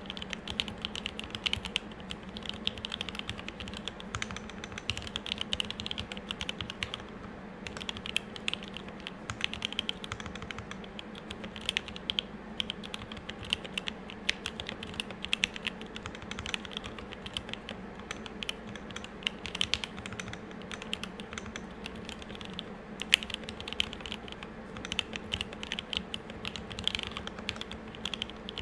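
Continuous fast typing on a custom M65-A mechanical keyboard with lubed Tealios 67g linear switches, a brass plate and GMK keycaps, a dense run of keystroke clacks with a few short pauses. A steady low hum sits underneath.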